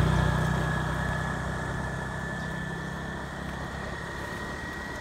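A motor engine running close by, its low hum fading steadily as it moves away, with a thin steady high whine over it.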